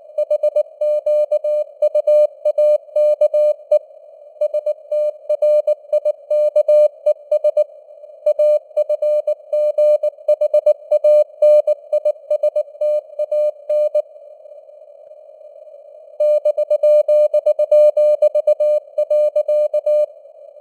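Morse code (CW) tone near 600 Hz keyed at about 19 words per minute, over a narrow band of simulated radio hiss. The keying stops for about two seconds about two-thirds of the way through, then resumes.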